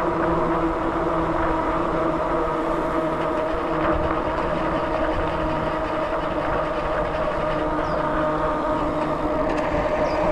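Steady running noise of a vehicle in motion: a constant hum made of several held tones over an even rumble, with no change in speed.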